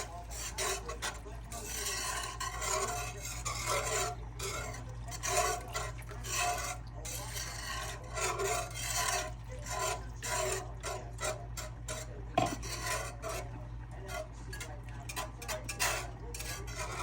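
A utensil stirring gravy in a pan, with repeated rhythmic scraping strokes against the pan, roughly two a second, and one sharper knock on the pan about twelve seconds in.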